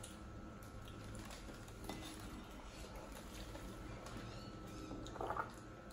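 Quiet close-up eating sounds from a seafood boil: scattered small clicks and clinks of hands and utensils working through shellfish, with chewing, and a brief louder sound about five seconds in.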